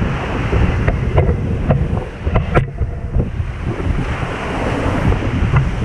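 Wind buffeting the camera microphone over the wash of breaking surf, with a few sharp clicks in the first few seconds.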